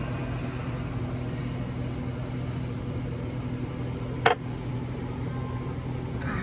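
A steady low electrical hum, with one sharp click about four seconds in as a metal dab tool knocks against glass while concentrate is scooped from a small jar.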